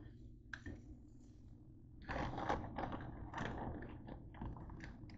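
Kitchen handling noise while cooking: a few sharp clicks, then about two seconds in a dense run of scraping, crinkling and clattering that lasts a couple of seconds.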